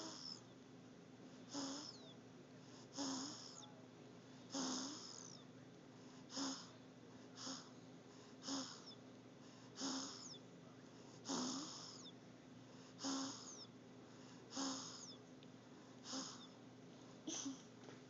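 A six-week-old baby snoring in sleep: a short snore with each breath, each a brief low grunt with a wheezy hiss, about one every second or so.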